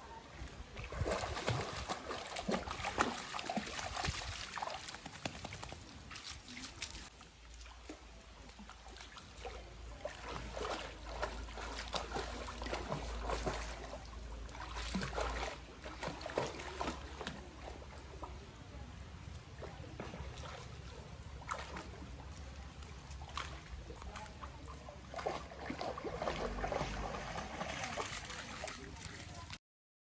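A spaniel wading through shallow creek water, its legs splashing and sloshing in irregular strokes.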